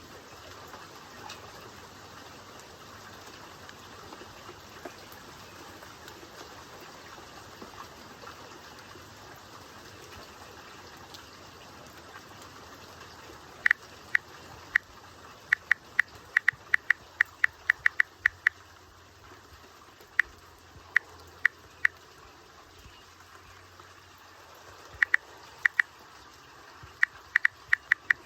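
Steady rain hiss. From about halfway through, clusters of sharp, high ticks come irregularly, several a second, and are louder than the rain.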